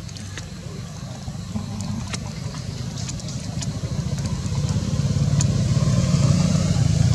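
A motor vehicle's engine running nearby, a steady low hum that grows louder from about halfway in, as if approaching.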